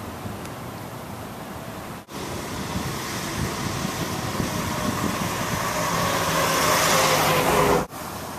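1960 Chevrolet Bel Air driving toward the microphone, its engine and tyre noise growing steadily louder for about six seconds. It cuts off abruptly near the end, with a quieter, steady car sound from a separate clip at the start.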